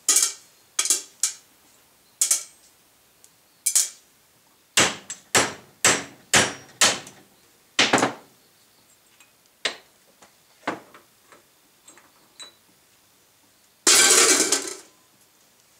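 Sharp metal-on-metal clanks and taps from a hammer and tools on driveshaft U-joint parts, coming at uneven intervals. About five seconds in there is a quick run of about six harder blows, and near the end a scraping rattle lasting about a second.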